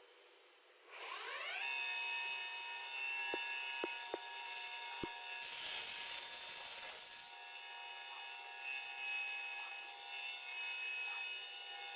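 CNC machining centre spindle spinning up, its whine rising in pitch about a second in and then holding steady and high. A few sharp clicks, and a burst of hiss for about two seconds midway.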